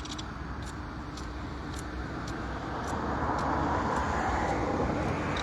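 Road traffic: a passing vehicle's noise slowly growing louder.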